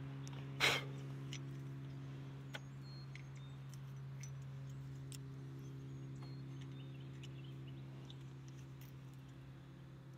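Small metallic clicks and clinks of hand tools and hardware as a wire terminal and nut are fitted by hand, with one sharper knock about a second in. A steady low mechanical hum carries on underneath.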